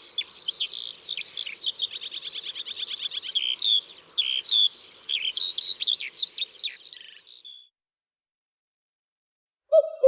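A songbird singing a fast, varied song of chirps, rapid trills and whistled slurs, stopping abruptly about three quarters of the way through. After a short silence, a different, low hooting call begins right at the end.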